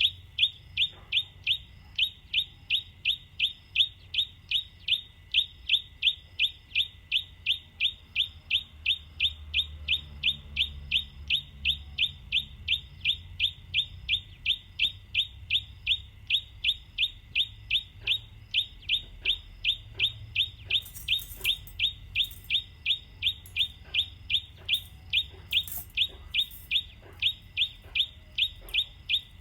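A bird repeating one short, high chirp over and over at an even pace of about two a second. Faint clicks come in around the middle.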